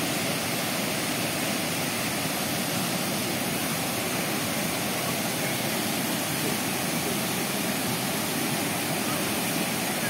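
Waterfall pouring into a pool: a steady, unbroken rush of falling water.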